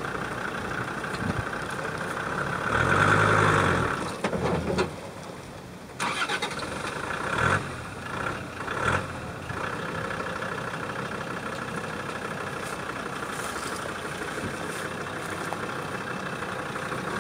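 Off-road 4x4's engine running, with a louder rev about three seconds in; the sound drops away briefly around five seconds, then comes back sharply and runs steadily.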